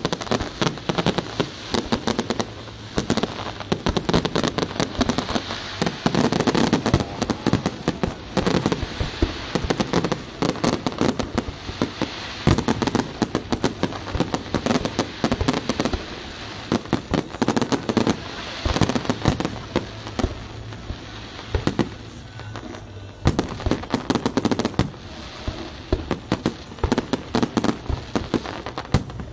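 Big fireworks display: aerial shells bursting in a near-continuous barrage of rapid bangs and crackling.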